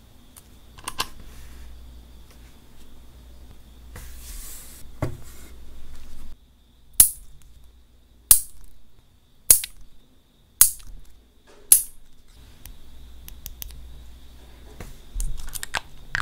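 A steel nail clipper snipping the ends off clear nail extension tips to shorten them: five sharp snips, about one a second. Before the snips come light taps and rustles as the tips are handled, and a few small clicks come near the end.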